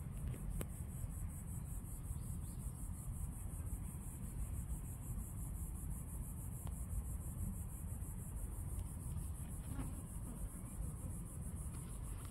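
Outdoor background: a steady low rumble under a continuous high, finely pulsing hiss, with a couple of faint clicks.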